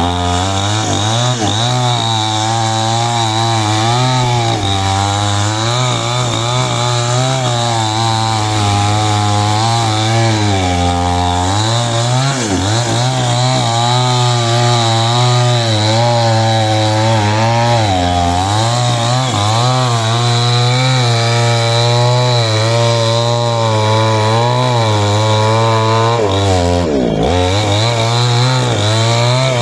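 Small two-stroke chainsaw running at high revs while cutting wood, its pitch wavering as the chain loads up and dipping sharply several times when the engine labours in the cut.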